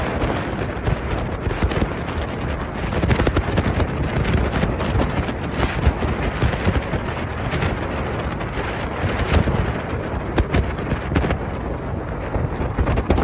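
Wind buffeting the microphone on a moving boat: a steady, heavy rumbling noise with frequent crackles.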